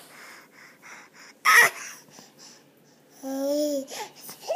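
A baby laughing in breathy, panting puffs, with one loud breathy shriek about a second and a half in. Near the end comes a drawn-out babbling "aah".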